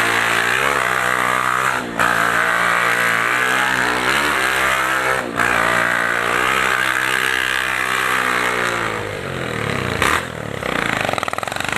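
Honda CG 150 Titan's single-cylinder four-stroke engine blaring through a straight-through exhaust pipe with no muffler, revving under way. It makes too much racket for the rider to hear his own voice. The note breaks briefly about 2 and 5 seconds in, then falls in pitch near the end as the revs come down.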